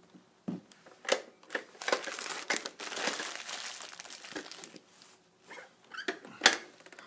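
A boxed pop-up toy handled by a baby: its cardboard and plastic packaging crinkling and rustling, with several sharp clicks and knocks, the loudest one near the end.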